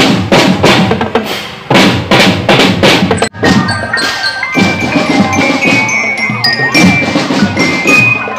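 Marching band snare and tenor drums playing a cadence. After an abrupt cut about three seconds in, marching glockenspiels (bell lyres) ring out a melody over the drums.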